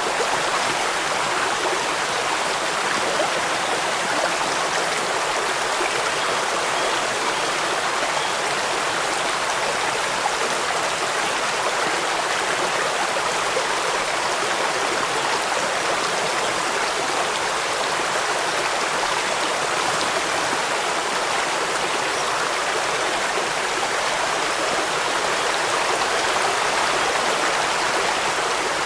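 Running water rushing steadily, an even hiss with no breaks, separate drops or changes.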